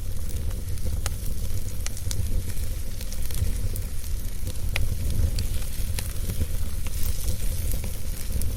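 Wood fire in a fireplace crackling, with sharp pops every second or so over a steady hiss and a low rumble.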